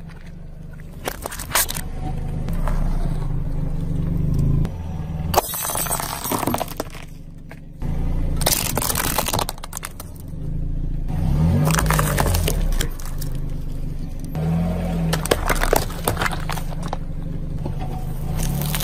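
A car tyre rolling slowly over brittle objects and crushing them: a run of sharp plastic cracks, snaps and crunches over the steady low running of the car's engine.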